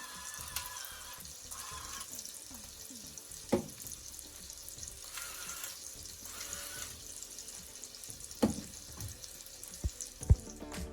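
Battery-powered electric salt grinder running, its motor grinding coarse salt with a steady gritty hiss, with a few sharp knocks near the middle and end.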